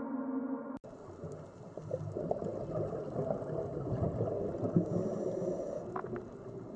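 A held, gong-like music tone cuts off just under a second in. It gives way to underwater ambience: irregular gurgling and bubbling water noise with a few faint ticks.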